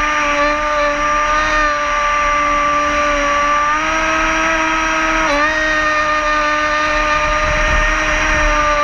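Radio-controlled boat's motor heard from on board at low, steady throttle: a constant whining tone over water noise. The pitch steps up slightly about four seconds in and dips briefly a second later.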